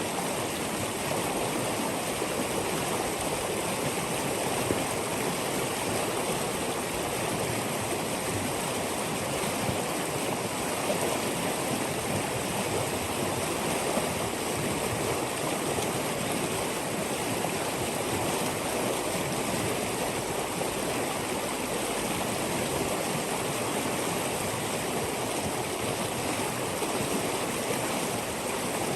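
A steady, unbroken rushing noise, spread evenly from low to high pitch, with no separate events.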